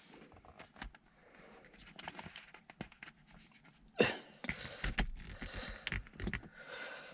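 Clicks, knocks and scraping of a replacement gear knob and its locking collar being worked onto a car's gear lever by hand, loudest about four seconds in, with some breathing.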